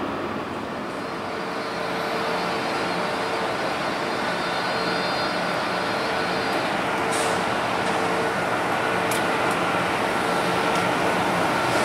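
A train approaching along the line, its rolling noise slowly growing louder, with a steady tone running through it and a few sharp high clicks in the second half.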